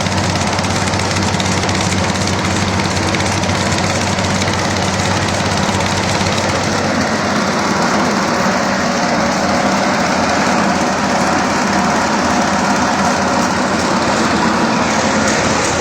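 Brick and roof-tile grinding mill running steadily: a loud, even machine drone with a dense rattle.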